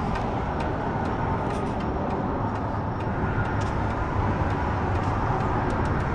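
Steady rumble of road traffic on the bridge overhead, with a few scattered light clicks over it.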